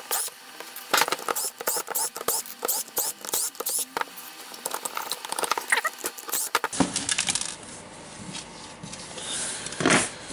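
Rapid, irregular clicks and taps of screws and plastic drill-housing parts being handled on a wooden tabletop. After a cut about two-thirds of the way through, only quieter rubbing and a few taps remain.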